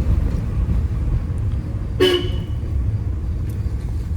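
A vehicle horn honks once, briefly, about halfway through, over a steady low rumble of engine and road noise.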